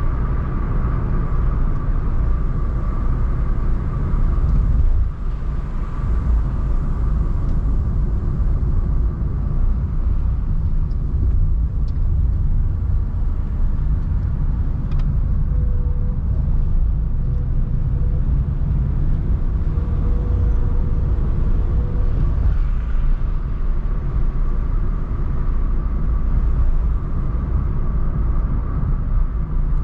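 Car driving at low town speed: a steady low rumble of engine and tyres on the road.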